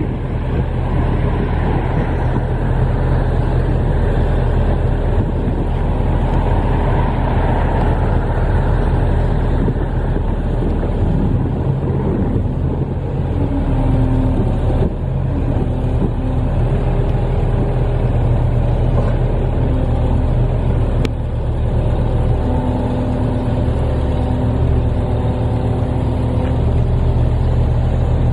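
New Holland WE150B wheeled excavator's CNH diesel engine running at a steady speed while the boom, bucket and stabilizers are worked hydraulically, with a mid-pitched tone coming and going in the second half.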